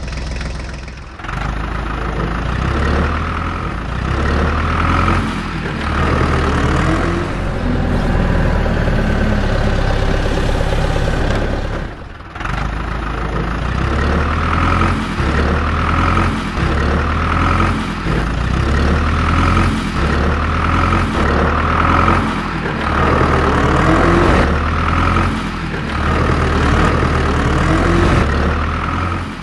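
Dubbed-in heavy engine sound effect, running with repeated rising revs. It cuts out briefly about a second in and again about twelve seconds in, then carries on.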